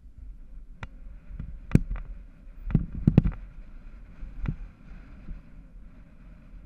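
Mountain bike rolling fast down a rough dirt track: a steady low rumble of tyres on dirt, broken by sharp rattling knocks as the bike hits bumps, loudest in a quick cluster about three seconds in.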